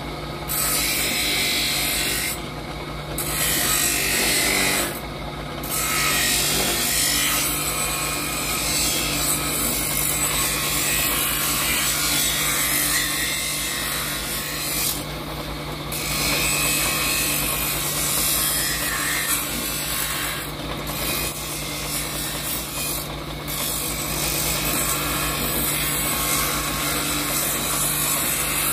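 Bench grinder running with a cut piece of buffalo horn pressed against its wheel, a loud, steady grinding over the motor's hum as the horn is rounded into shape. The grinding breaks off for a moment about five times as the horn is lifted from the wheel, while the motor keeps running.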